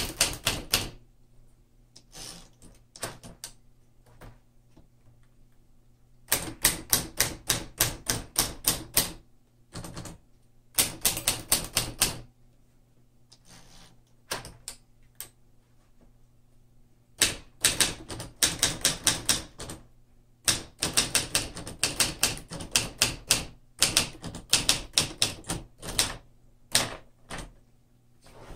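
Keys of a 1954 Smith Corona portable manual typewriter being typed on: quick runs of sharp typebar strikes, several a second, broken by short pauses and a few single keystrokes.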